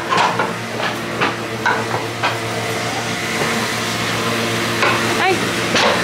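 Barn gutter cleaner running: a steady motor hum with the scraping and clanking of its chain, and short knocks about twice a second.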